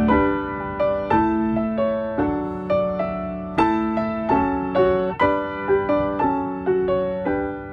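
Slow solo piano music: notes and chords struck one after another and left to ring out over a held low note.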